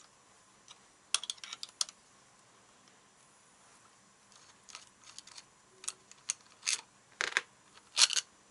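Light metallic clicks and taps from a homemade piston-pin press: a nut spun by hand down a threaded stud against a washer and cup, drawing the pin into a motorcycle piston. The clicks come in small scattered clusters, the loudest near the end.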